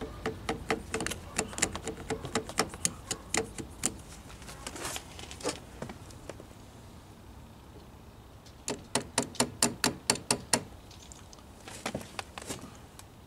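Runs of light metallic clicks, about three to five a second, from hand tool work on a Singer 306 sewing machine's hook assembly. One run lasts about four seconds at the start, and a faster, louder run comes about nine seconds in.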